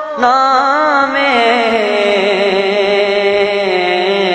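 A naat, an Urdu devotional poem in praise of the Prophet, sung: the word "naame" is drawn out, wavering in quick ornamental turns for about a second, then held as one long steady note.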